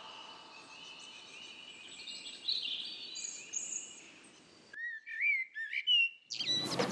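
Birds chirping: a few short chirps over a fading hiss, then, after a moment of silence, a clear warbling song of whistled notes rising and falling.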